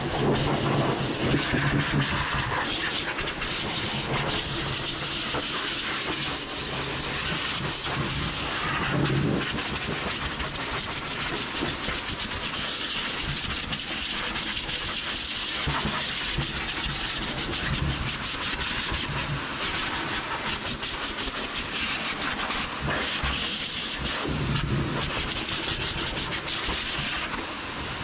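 High-velocity dog grooming dryer blowing air through its hose, a steady loud rushing hiss that swells briefly now and then as the nozzle is moved through the dog's wet coat.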